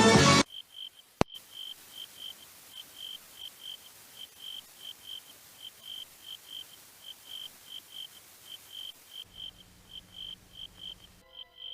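Crickets chirping: short, high chirps repeating several times a second, often in pairs. There is a single sharp click about a second in, and a low hum comes in near the end.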